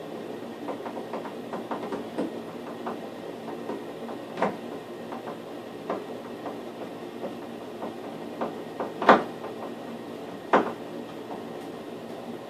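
Light-fixture mounting plate being fitted against the wall by hand: a run of small clicks and taps, then three sharper knocks, the loudest about nine seconds in, over a steady hum.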